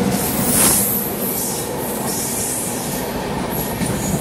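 A train passing close on the adjacent track at speed, heard from the open door of a moving train: a loud, steady rush of wheels on rails and air as the locomotive and then the coaches sweep by. It is loudest just under a second in.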